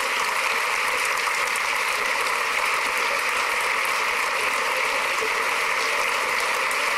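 A large crowd applauding: dense, even clapping with no break.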